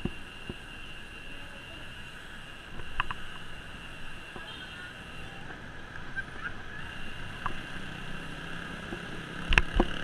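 Street riding noise heard from a bicycle: a steady hiss of road and wind noise with traffic around, and a steady high whine underneath. A few sharp knocks or rattles come through, the loudest near the end.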